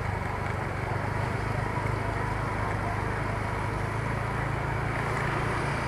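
Motor scooter engine running with a steady low hum as it rides along a street, with constant road and traffic noise.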